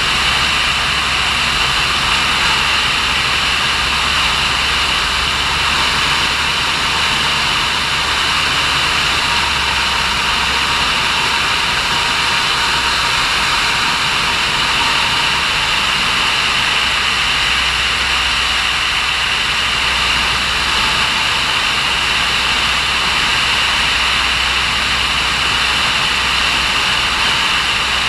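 Steady drone of a light aircraft's engine and propeller in cruise, heard on board, mixed with rushing air.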